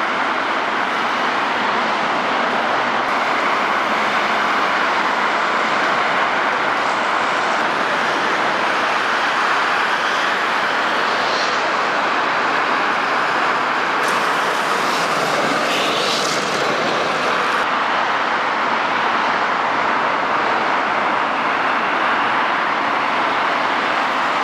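Steady noise of heavy road traffic mixed with trams running along their track, with a few faint high squeals around the middle.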